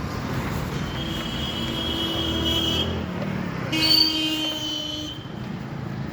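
Road traffic running past, with two vehicle horn blasts, each one to two seconds long; the second, a little before the middle, is the louder.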